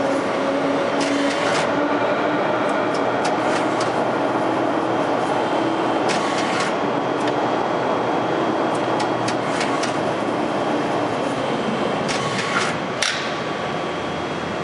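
A 70-ton Adira upacting hydraulic press brake running, its hydraulic pump giving a steady hum under a broad mechanical noise, with a few scattered clicks and a sharper click near the end.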